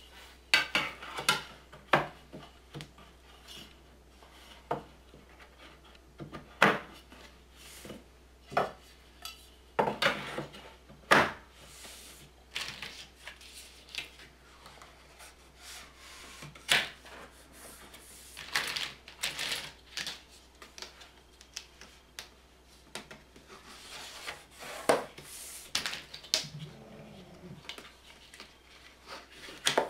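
Aluminium channel strips clinking and knocking against each other and the board as they are handled and pressed into grooves routed in a CNC machine's bed: irregular metallic clatter and sharp taps.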